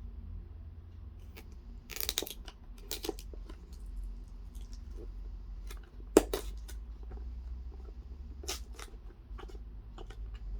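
Packaging of a smartwatch box being opened by hand: scattered rustling, tearing and clicks, with the sharpest snap about six seconds in.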